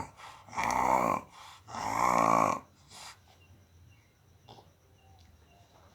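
A child snoring: two loud, rasping snores about a second apart, then a few quieter seconds. The uploader puts the snoring down to enlarged tonsils.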